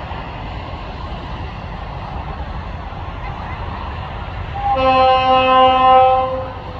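Tasrail DQ-class diesel locomotive's horn sounding one blast of nearly two seconds, a steady chord of several tones, starting just under five seconds in as the train approaches a level crossing. A steady low rumble runs underneath.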